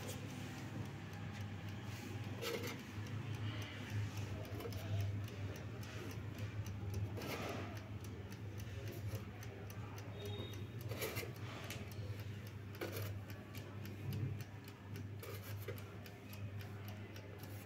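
Mechanical dial timer of an air fryer ticking steadily as it counts down a set time, over a low steady hum. A few slightly louder soft taps come at about 2.5, 7 and 11 seconds in.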